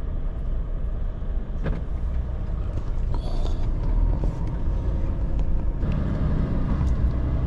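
A lorry's diesel engine running, heard from inside the cab. The engine note grows louder about six seconds in as the lorry pulls away, with a short hiss a little after three seconds.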